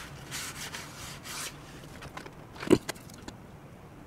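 A paper tissue rubbing twice over a workbench, then a sharp knock as something is set down on the cutting mat, with a lighter click just after.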